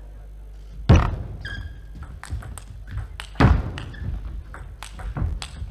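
Table tennis rally: the ball clicks sharply off the bats and the table in quick succession, with a couple of heavier thuds and brief shoe squeaks on the court floor.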